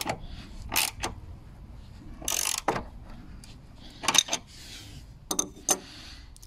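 Ratchet spanner turning a nut on a bolt: short bursts of metallic clicking about a second apart, with a longer half-second run of clicks about two and a half seconds in.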